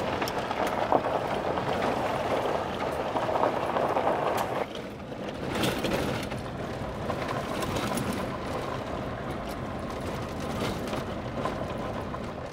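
Vehicle driving on a gravel dirt road, heard from inside the cab: steady road and engine rumble with small rattles and clicks, dipping briefly partway through.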